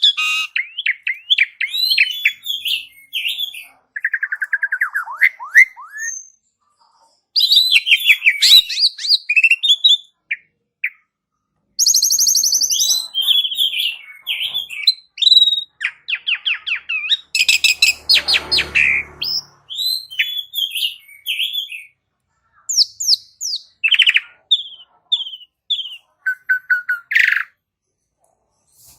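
Javan pied starling (jalak suren) singing a long, varied song: phrases of whistles, chirps, rapid trills and harsh rasping notes, broken by short pauses. A harsher, scratchier stretch comes about two-thirds of the way through, and the song stops shortly before the end.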